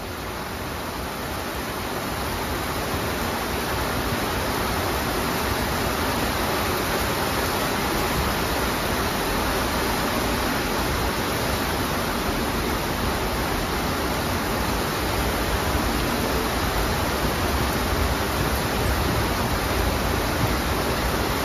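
Amtrak train of stainless-steel coaches passing at speed through heavy rain: a steady rushing noise of wheels, air and spray. It grows louder over the first few seconds, then holds.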